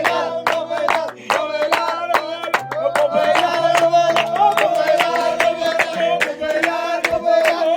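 Music playing: held notes that change in the bass, over a quick, steady beat of sharp percussive hits.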